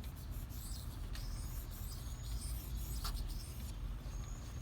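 Knife blade of a Benchmade Mini Barrage being stroked across a Shapton Pro water stone in sharpening, a faint irregular scraping over a steady low outdoor rumble.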